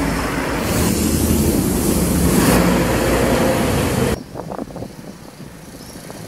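Road traffic passing close: a motorcycle and then a cement mixer truck go by, loud and steady. About four seconds in the sound cuts off abruptly to a much quieter background.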